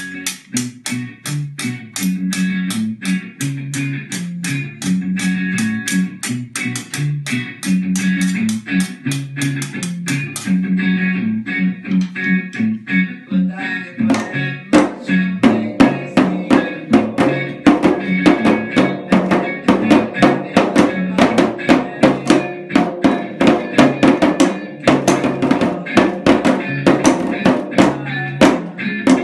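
A recorded song with guitar, played along with percussion at about four strokes a second: first a metal cheese grater scraped with a fork, then, about fourteen seconds in, sticks beating on a drum, which sounds fuller and louder.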